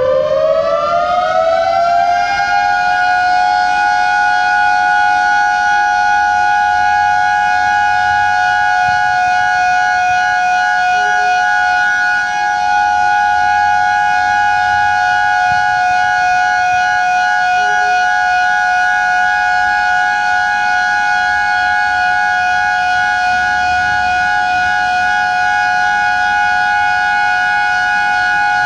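Siren winding up, rising in pitch over the first couple of seconds, then holding one steady, loud wail.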